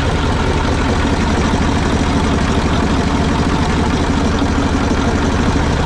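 Ural truck's diesel engine idling, heard close-up in the open engine bay. It is a steady, fast, even clatter.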